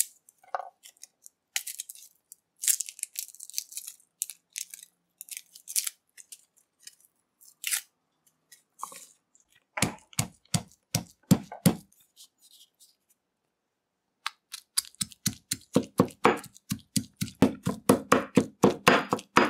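Garlic cloves being peeled by hand, the papery skins crackling and tearing. Then a stone pestle pounds garlic and hot pepper in a stone mortar: a quick run of knocks about ten seconds in, a pause, then steady fast pounding of several strokes a second.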